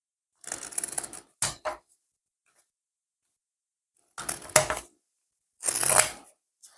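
Support material being picked and snapped off a 3D-printed plastic part: short bursts of crackling and scraping, two near the start and two more after a pause of a couple of seconds.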